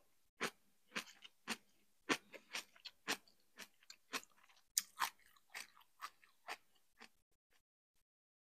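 Close-miked chewing of crunchy shredded cabbage salad with the mouth closed, about two to three crunches a second, stopping about seven seconds in.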